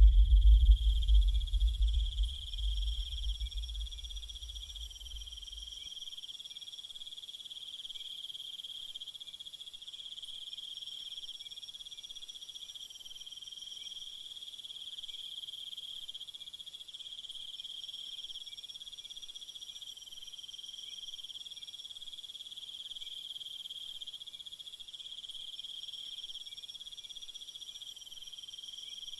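Steady high insect chirring, like a night-time cricket chorus. It follows a deep low boom that dies away over the first few seconds.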